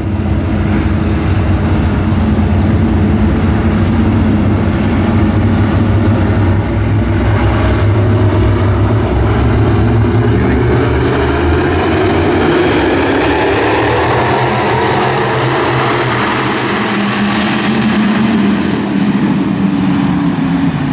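A pack of WISSOTA Midwest Modified dirt-track cars running together, their V8 engines making a dense, layered drone. It swells to its loudest about two-thirds of the way through as the field accelerates past, then eases slightly.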